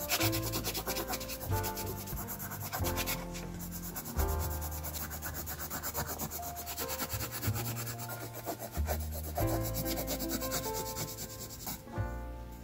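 Graphite pencil scratching across sketchbook paper in rapid back-and-forth shading strokes, a dense, even rubbing, over background music with held bass notes.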